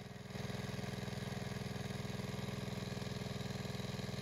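Water pump motor running steadily with an even low chugging, pumping the pond dry through a hose.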